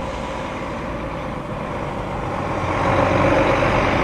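A race truck driving past close by: a steady engine and road noise that swells to its loudest about three seconds in.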